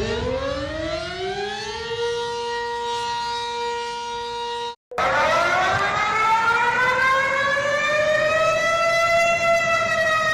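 Civil defense siren winding up: its tone rises in pitch and settles on a steady wail, then cuts off abruptly about five seconds in. A second siren tone starts lower, climbs slowly and begins to fall again near the end.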